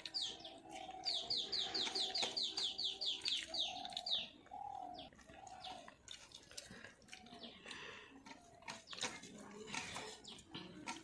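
Birds calling: a fast run of about a dozen high, descending chirps lasting about three seconds, with a dove cooing low beneath and after it.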